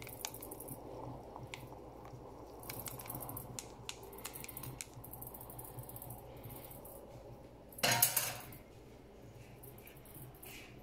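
A paddle stirring brewing coffee in the glass upper chamber of a Hario NCA-5 siphon coffee maker, with light clinks of the paddle against the glass. About eight seconds in there is a short, louder scrape.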